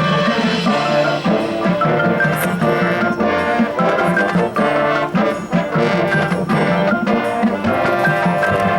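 Marching band playing in competition: brass chords over a front ensemble of marimbas and other mallet percussion, with drums and a steady run of sharp rhythmic attacks.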